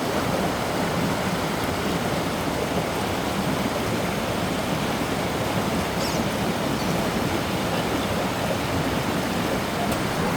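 Steady rushing of a creek's flowing water, an even noise with no change.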